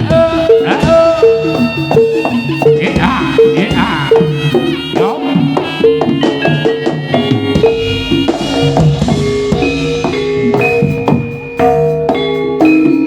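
Loud Javanese gamelan music of the jaranan sentherewe style: bronze metallophone and gong-chime notes ringing in a fast repeating pattern over drum strokes, with a higher melody line bending in pitch above them.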